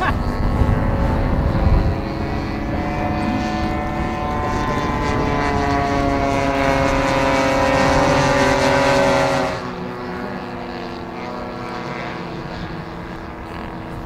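Radio-controlled model aircraft engines running with a steady propeller drone whose pitch drifts slowly. The sound grows a little louder, then about nine and a half seconds in drops sharply to a quieter, lower engine sound.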